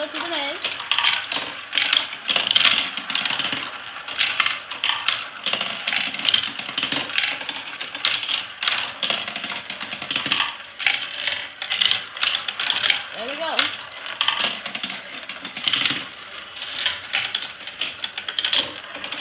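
Glass marbles rolling and clattering through a plastic marble-run track, with a dense, uneven stream of small clicks and rattles as they drop down the tubes and circle the funnels.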